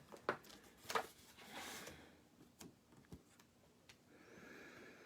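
Faint handling noise while working on a paper card: a few light scattered taps and two short stretches of soft rubbing.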